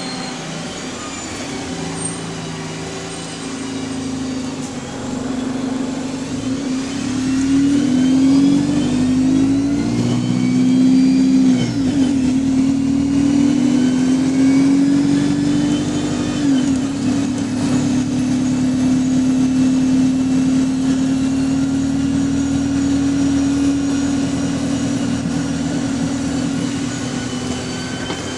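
Bus engine and Voith automatic gearbox pulling away: the note and a higher whine rise in steps through gear changes, then settle to a steady run. The gearbox sounds healthy.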